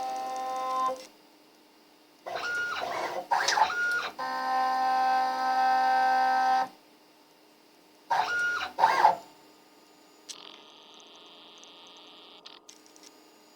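CNC router's stepper motors driving the axes: a series of separate moves, each a steady pitched whine that starts and stops abruptly, some short and jerky and one lasting a couple of seconds. A faint hiss follows near the end.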